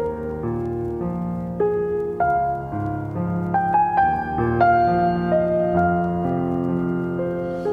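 Background piano music: a gentle, steady run of single melody notes over held bass notes.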